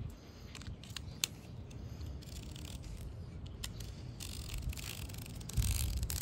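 Small utility knife cutting excess fiberglass window-screen mesh along the spline channel while the trimmed strip is pulled away, making scratchy rasping cuts with a few sharp clicks. A brief low rumble comes near the end.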